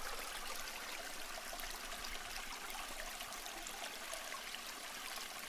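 Steady rushing hiss with scattered small ticks, a water-like sound effect laid under the sparkling intro title.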